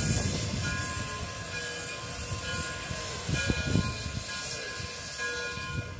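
Frisco 1630, a 2-10-0 steam locomotive, working slowly: spaced exhaust chuffs about a second apart over a steady hiss of steam, with low rumbling from the moving engine.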